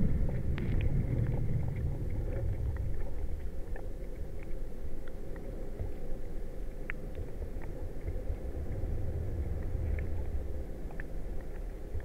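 Underwater sound from a hydrophone in a shallow reedy pond: a steady low rumble from wind-blown reeds and water moving against the hydrophone and its cable, with scattered faint clicks. No sound from the frog spawn itself comes through.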